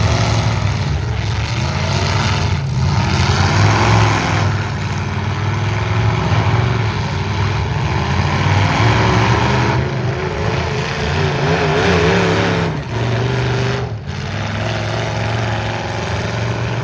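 Several stock pickup trucks' engines running and revving together, their pitches rising and falling as they drive and jockey in a demolition derby heat.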